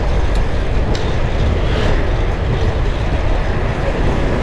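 Wind rumbling across the microphone of a camera on a moving fixed-gear bicycle, mixed with road and traffic noise, with two light clicks in the first second.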